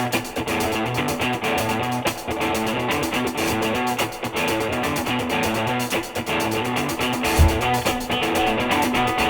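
Background rock music with strummed electric guitar over a steady beat.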